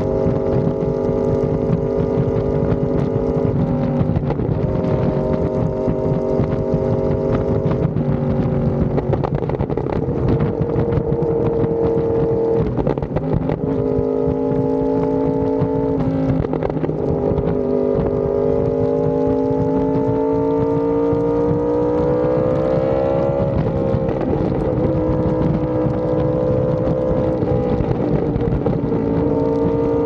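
Yamaha R1M's crossplane inline-four running through an SC Project exhaust, heard from on board while riding. The engine note holds steady, drops in pitch several times as the gears change, then climbs steadily for several seconds under acceleration and drops sharply about 23 seconds in.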